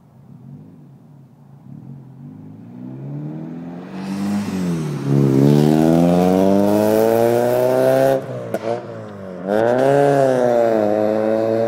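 Nissan Micra K10 with a GA16 engine and a straight-piped 4-2-1 exhaust with a Cherry Bomb muffler, accelerating hard past. The engine note comes up from faint, climbs in pitch for about three seconds, drops away briefly about eight seconds in with a few sharp cracks, then climbs again.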